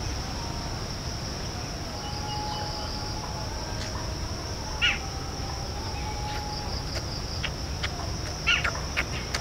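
Steady high-pitched drone of insects such as crickets, with a few short bird chirps about halfway through and again near the end, over a low rumble.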